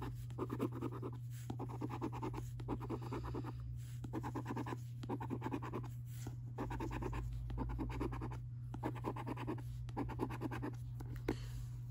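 A coin scratching the latex coating off the number panels of a paper scratchcard. It comes in repeated strokes of about a second each with brief pauses between them, over a steady low hum.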